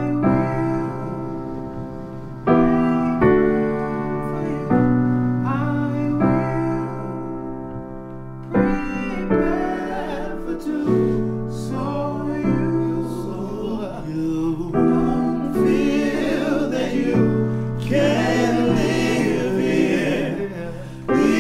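Soundtrack music: slow, sustained piano chords. A singing voice comes in about halfway through and grows fuller near the end.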